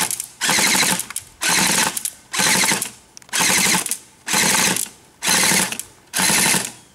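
Homemade twin-barrel airsoft flak gun, two electric airsoft guns mounted together, firing a run of short full-auto bursts, each about half a second long and about a second apart.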